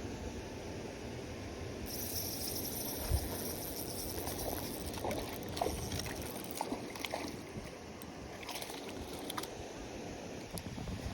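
Water sloshing and splashing over a steady outdoor rumble, with a run of short, sharp splashes or clicks in the middle.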